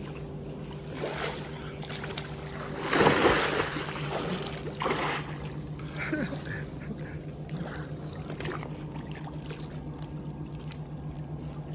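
Splashing as a diver enters the water at night, loudest about three seconds in with a smaller splash near five seconds, over a steady low hum.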